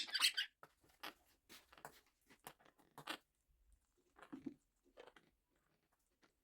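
Quaker parrot (monk parakeet) biting and chewing cauliflower: faint, scattered crunches and clicks of beak on food, with short pauses between.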